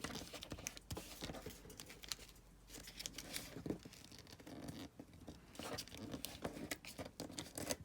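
Paper being handled and folded: faint, irregular rustling and crinkling with scattered small taps and crackles.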